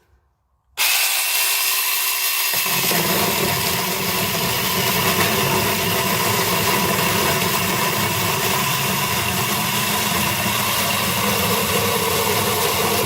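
A 21-volt cordless mini chainsaw with a 6-inch bar starts suddenly about a second in and runs steadily while cutting through a piece of 1¼ by 3¼ inch timber. Its sound deepens a couple of seconds later as the chain bites into the wood.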